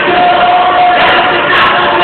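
A crowd in a large hall cheering and shouting over music, with one voice holding a long note for most of the first second.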